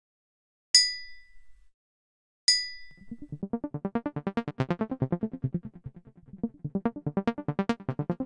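A ceramic coffee mug tapped twice with a pen, each tap a sharp clink with a short high ring. From about three seconds in, an electronically processed version of the tap follows: a lower, rapidly pulsing warble of about ten beats a second that swells, fades and swells again.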